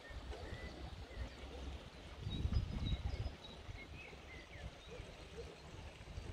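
Small birds chirping in short scattered calls over a low outdoor rumble, which swells louder about two seconds in.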